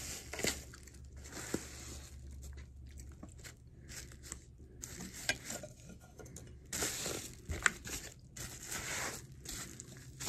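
Crunching and chewing of a baked edible clay ball close to the microphone: irregular crisp crunches and clicks, the sharpest about three quarters of the way in.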